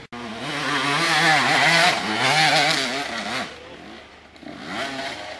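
Dirt bike engine revving hard under load on a steep hill climb, its pitch wavering up and down with the throttle. It eases off about three and a half seconds in, then revs once more briefly near the end.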